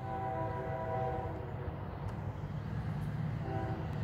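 Nathan K5H five-chime air horn on a GE AC44 locomotive sounding: one long blast of about a second and a half, then a second blast starting near the end, over a low rumble.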